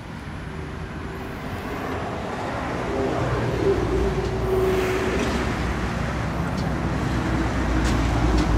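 A motor vehicle's engine rumbling and growing louder over the first few seconds, then running steadily, with road traffic noise.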